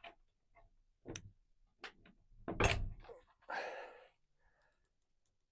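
Lock hardware on a truck topper being handled and fitted: a few small clicks, a louder knock about two and a half seconds in, then a short scraping rustle.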